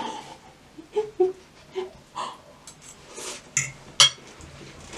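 Eating sounds from creamy pasta: a run of short slurps and mouth smacks as noodles are sucked up and chewed, about eight separate sounds spread through a few seconds.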